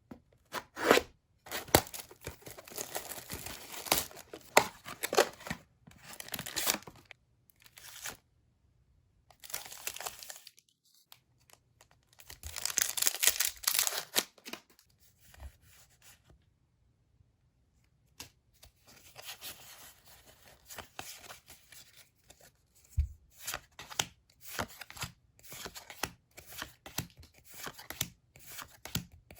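Packaging of a Pokémon trading card box and its foil booster packs being torn open and crinkled, in separate bursts of ripping with pauses between. Near the end come quick clicks and rubs as the cards are handled.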